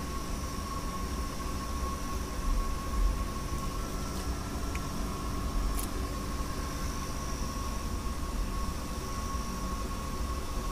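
A steady machine hum with a constant thin whine over it, and gusty low rumble on the microphone.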